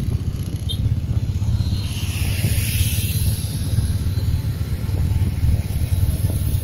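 Motorcycle riding along at speed, heard from the rider's own camera: a steady low rumble of engine and road, with a brief hiss that swells and fades about two to three seconds in.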